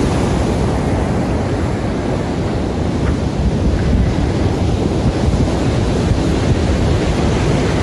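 Large ocean waves breaking on a beach, a continuous heavy rushing surf, with wind rumbling on the microphone.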